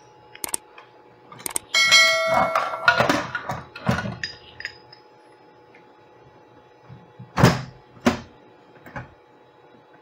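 Heavy steel pipe wrench being handled and set down on a circuit board: a metallic clang with a short ring about two seconds in, then some clattering, and two sharp knocks near the end.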